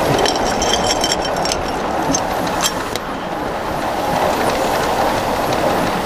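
A 1-inch-scale live steam Pacific locomotive running along the track, a steady rolling rumble of wheels on rail. A few sharp metallic clicks and brief high tones come in the first three seconds.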